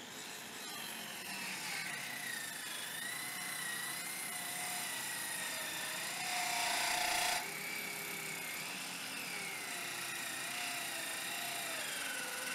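Parkside cordless circular saw on a 2Ah battery cutting into a thick timber beam with the blade buried full depth: the motor whine wavers and sags under the heavy load. The pitch falls toward the end as the saw labours in the cut.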